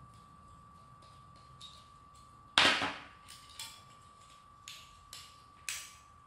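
Handling clicks of hard 3D-printed plastic parts and a screwdriver: one sharp clack about two and a half seconds in, then several lighter taps.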